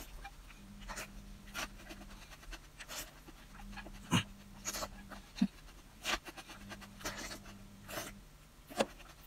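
Close-up wet mouth sounds of eating soft fatty braised pork: about a dozen short smacks and sucking noises at irregular intervals as the pieces are sucked in and chewed.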